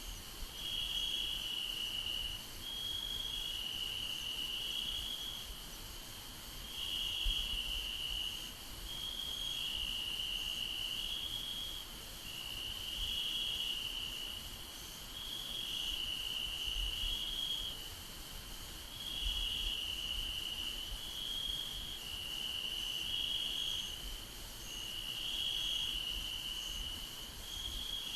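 Crickets trilling without a break, the high trill shifting back and forth between two slightly different pitches, over a faint steady hiss.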